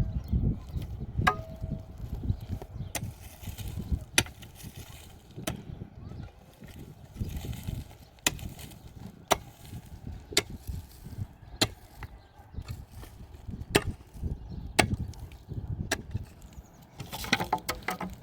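Axe chopping wood: sharp, separate blows, about one every second or so, with irregular pauses between them.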